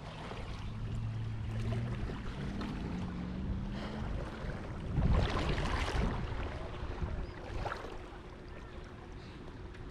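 Water sloshing and splashing around a kayak on a river, with wind noise on the microphone. There is a louder rush of water noise about five seconds in.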